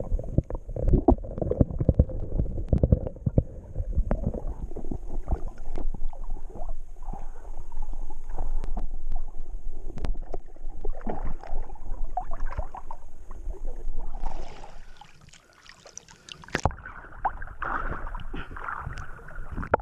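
Water splashing and sloshing with irregular knocks and handling noise, over a low rumble of wind on the microphone. It drops quieter about fourteen seconds in, then picks up again.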